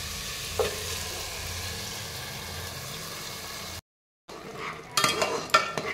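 Boiled dal poured into a hot pan of fried chicken and spices, sizzling with a steady hiss that slowly eases off. After a short break, a steel spatula scrapes and clinks against the pan as the dal is stirred in.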